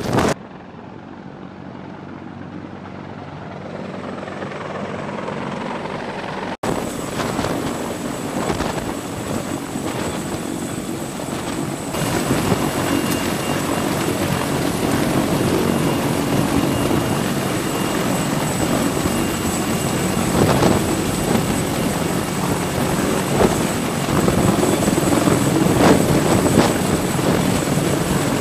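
Sikorsky CH-53E Super Stallion heavy-lift helicopter hovering low overhead: steady, loud rush of rotor wash and turbine engines, with a thin high turbine whine on top. For the first six seconds or so the sound is quieter and muffled, growing slowly, then it cuts to a louder, fuller sound.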